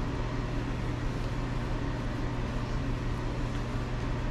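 A steady machine hum with an even hiss, unchanging throughout.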